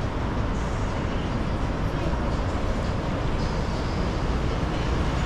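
Steady noise of city street traffic: engines and tyres of passing cars and buses blending into one continuous sound.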